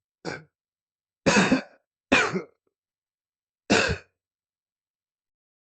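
A person clearing their throat four times: a short soft one, then three loud throat-clears, the last after a pause of over a second.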